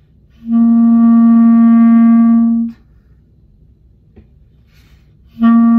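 Clarinet playing long tones on the note C: one steady held note of about two seconds, a pause for breath, then the same note starting again near the end.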